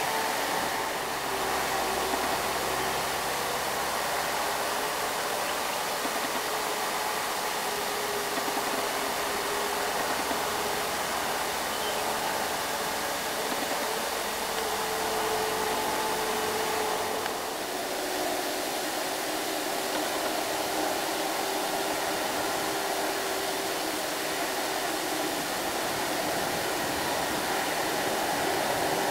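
Loaded diesel light trucks running past on a mountain road: a steady hiss of engine and tyre noise with a faint engine hum that drifts slowly in pitch.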